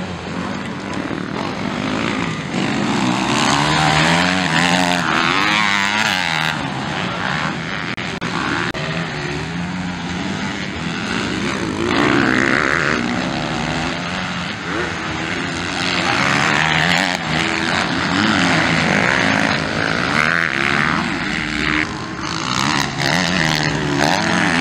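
MX2 motocross bike engines racing, revving up hard and easing off again and again, the pitch sliding up and down with each throttle change.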